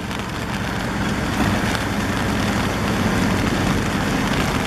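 Mercedes-Benz dump truck's diesel engine running as its tipper bed is raised, with earth pouring off the bed; the sound gets somewhat louder about a second and a half in.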